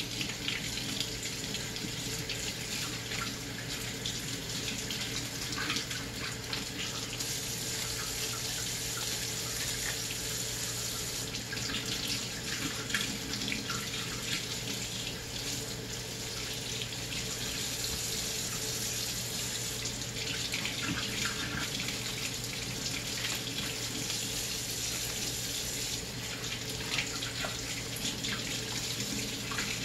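Kitchen faucet running steadily into a stainless steel sink, the stream splashing over hands and leaves as turnip greens and kale are rinsed under it.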